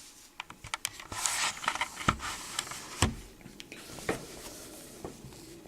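A plastic Blu-ray case and its packaging being handled: light clicks and crinkling, then three louder knocks about a second apart as the case is turned and set down.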